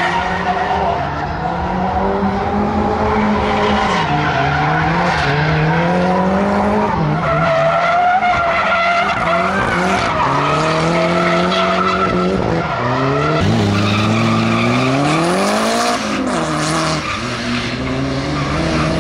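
Nissan drift cars' engines revving hard, the pitch rising and falling again and again with the throttle, over tyres screeching as the cars slide sideways. About three quarters of the way through, the revs climb in one long rise.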